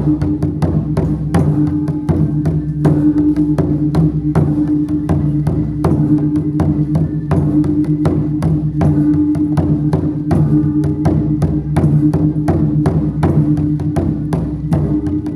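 Chinese gong-and-drum (luogu) percussion playing a continuous fast, even beat: drum and gong strokes with sustained gong ringing underneath.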